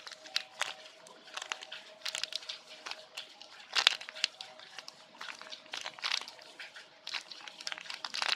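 Irregular crinkling and rustling of a squishy toy being handled, in short scattered crackles, over a faint steady hum.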